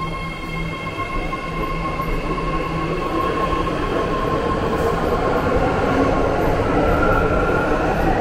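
BART Fleet of the Future electric train pulling out of the station and gathering speed. A steady electric whine and rail rumble grow louder, and a higher whine joins near the end.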